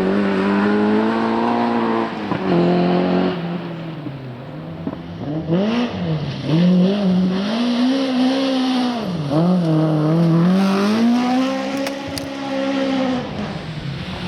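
Rally car at full throttle on a gravel or tarmac special stage, its engine note climbing and dropping sharply several times as it shifts gear, lifts off and re-accelerates through corners.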